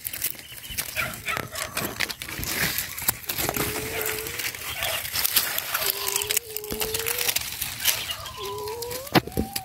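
Puppies whining in their den: several drawn-out thin whines of about a second each, the last one rising in pitch near the end, over crackling of dry leaves and twigs being brushed aside.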